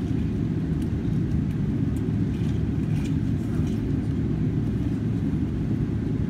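Steady low drone inside the cabin of a Boeing 777-300ER, its GE90 engines idling while the jet waits short of the runway.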